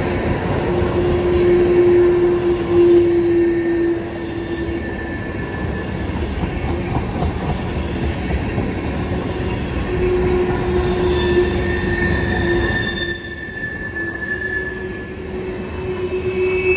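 Long freight train's cars rolling past with a steady rumble of steel wheels on rail. Wheel squeal rings out in steady tones that fade and return, with a higher squeal about eleven seconds in.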